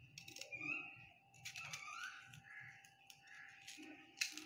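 Kitchen knife cutting a small bitter gourd on a plastic cutting board: a few faint clicks and taps of the blade, the loudest near the end.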